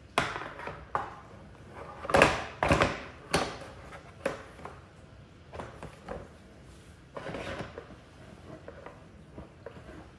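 Hard plastic hose-reel parts knocking and clacking together as the drum is worked onto the frame, with the loudest clatter a couple of seconds in and a longer scrape around two-thirds of the way through.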